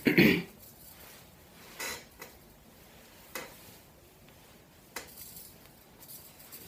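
Hands finger-combing a curled wig, making soft rustles and swishes about every second and a half. There is a louder knock right at the start.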